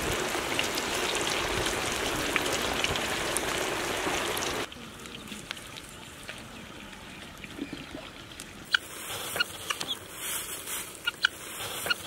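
Chicken pieces deep-frying in a wok of hot oil: a loud, dense sizzle that cuts off abruptly about four and a half seconds in. After a quieter stretch, sharp clicking, harsh calls of helmeted guinea fowl begin in the last few seconds.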